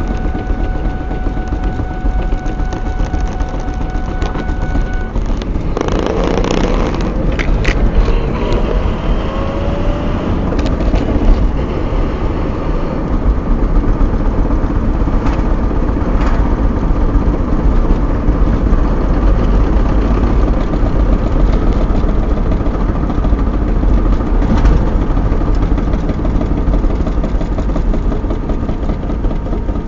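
Ford Mustang rear end thumping repeatedly while the car is driven, over heavy road and drivetrain rumble. The noise comes only off the accelerator and rises and falls with wheel speed rather than engine revs, which the owner suspects is a U-joint or differential fault.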